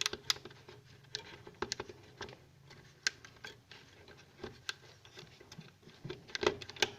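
Irregular light clicks, taps and scratching of hand work on a fridge's plastic freezer parts, with a few sharper clicks near the end.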